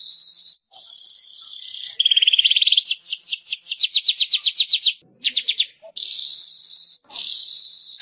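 Manyar weaver bird singing: long, high, buzzy hissing trills alternating with rapid runs of short repeated notes, about ten a second, some sliding downward, in several phrases separated by brief pauses.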